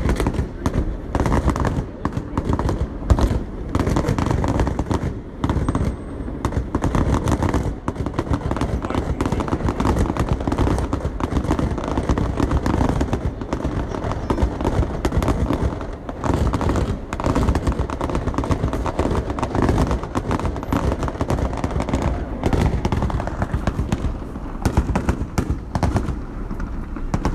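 Fireworks display going off: rapid, overlapping bangs and crackles with no break.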